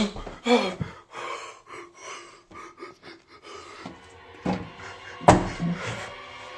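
A frightened man's heavy breathing, with gasps and pants. About five seconds in there is a single loud bang.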